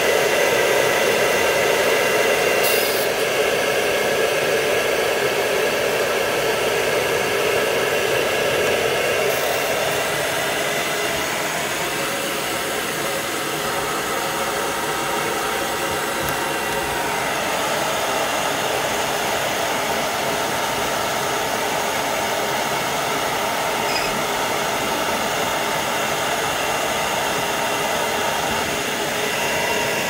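Blow dryer running steadily, a continuous rush of air drying a wet dog's coat; its tone shifts slightly about ten seconds in and again a few seconds later.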